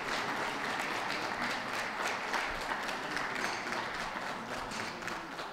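Audience applauding steadily, a dense mass of hand claps that eases off slightly near the end.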